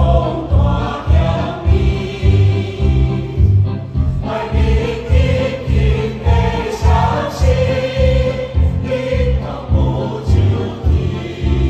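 Choir singing a lively Taiwanese Hokkien song over accompaniment with a steady bass beat.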